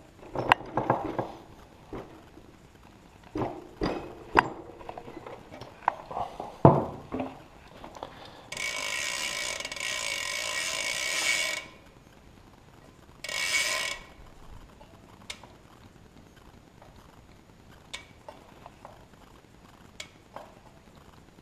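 Bicycle cassette lockring being fitted on a rear hub: scattered metal clicks and knocks, then a rapid ratcheting buzz for about three seconds, and a shorter one a little later.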